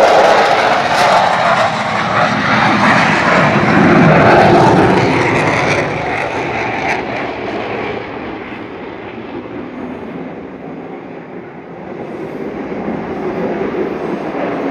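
F-15 Eagle fighter jets taking off: a loud jet roar that fades away over the first half, losing its hiss as it recedes, then builds again over the last few seconds as another jet comes up.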